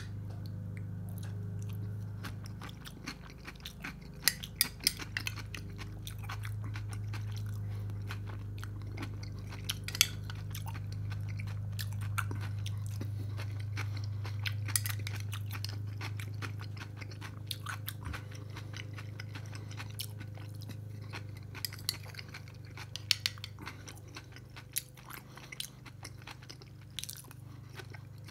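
Close-miked chewing and crunching of food, with sharp clicks of a metal spoon in a glass bowl scattered throughout, over a steady low hum.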